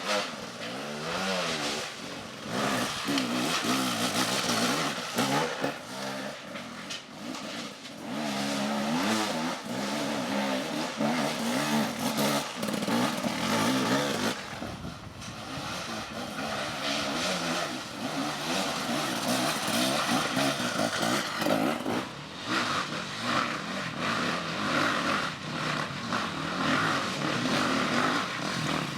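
Off-road motorcycle engines running and revving, their pitch rising and falling over and over.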